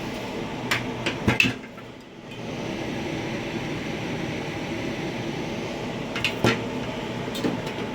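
A few light clicks and knocks of small tools being handled in a tool chest drawer, over a steady background hum.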